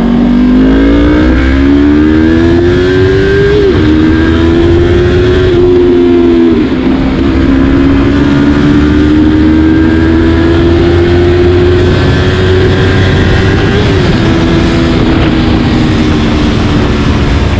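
Yamaha R3 V2's parallel-twin engine run at raised revs: the pitch climbs over the first few seconds, drops sharply twice, then rises slowly and holds steady. The exhaust still has a leak at a joint, which the mechanic points out.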